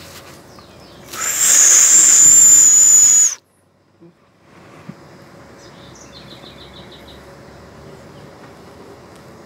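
A person's loud, breathy, high-pitched whistle, held steady for about two seconds as a call to small monkeys in the trees; it cuts off suddenly. A few seconds later comes a faint quick trill of about seven high chirps.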